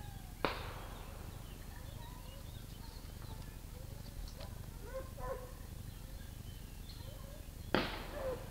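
Two distant gunshots about seven seconds apart, each a sharp crack with a short echoing tail. Hunting dogs yelp faintly in between.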